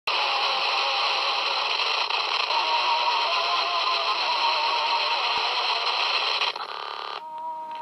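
Loud hiss and static from a Sony cassette recorder's small speaker, with faint warbling tones inside it. It cuts off about six and a half seconds in, changes briefly to a rougher buzz, and ends on two steady tones.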